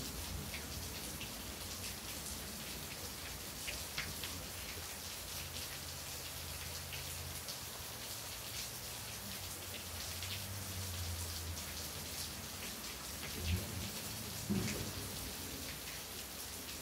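Steady rain falling, with single drops tapping sharply now and then over the even patter. A low rumble comes and goes twice, about five seconds in and again around ten seconds in.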